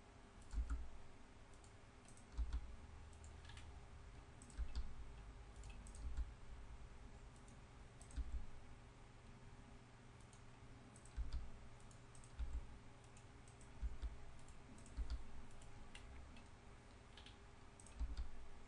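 Sparse computer mouse and keyboard clicks at a desk, with light knocks, one every second or two, over a faint steady hum.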